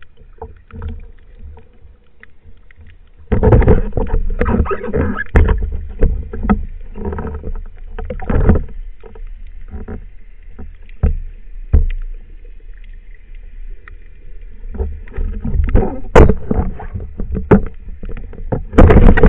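Underwater water and handling noise picked up by a speargun-mounted camera. It is quiet at first. From about three seconds in comes a run of knocks, scrapes and rushing water as the speargun and its shaft are handled. Near the end there is a loud burst of splashing water.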